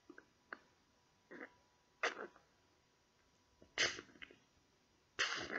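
Hammer blows on a ship's hull during a repair: a series of short, sharp knocks, faint at first, then three louder strikes spaced a second and a half to two seconds apart.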